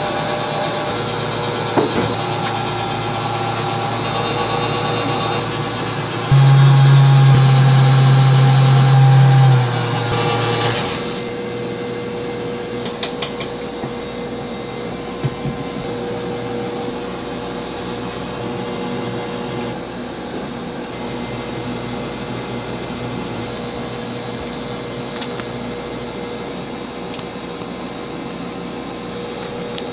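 Steady whirring of a motor or fan with several steady tones. A much louder low hum comes in about six seconds in and stops about four seconds later. A single steady tone then carries on under quieter whirring.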